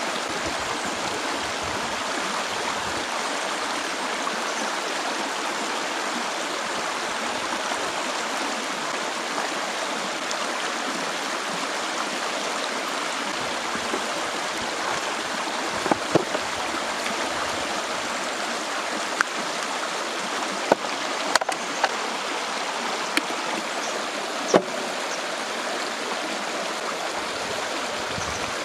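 A stream running steadily over rocks and roots, an even rush of flowing water. A few short sharp clicks or splashes stand out in the second half.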